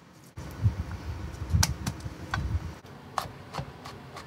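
Kitchen knife chopping garlic cloves on a wooden cutting board: an uneven series of sharp knocks of the blade against the board, about eight in all.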